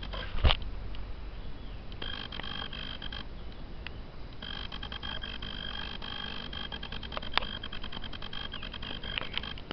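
Insects buzzing with a steady high-pitched drone that stops and starts several times. A loud thump comes about half a second in, and a sharp click later on.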